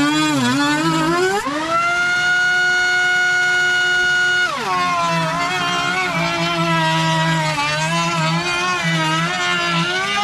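Router in a router table cutting the edge of a wooden panel. The motor's whine sits low and wavers in pitch while the bit is in the cut, rises to a steady higher whine about a second and a half in as the bit runs free, then drops again about four and a half seconds in as the next edge is fed into the bit.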